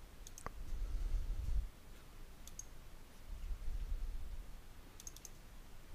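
A few soft computer mouse clicks, with a quick cluster of clicks near the end, over a faint low rumble.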